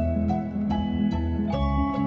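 Gentle instrumental background music, its notes changing about every half second.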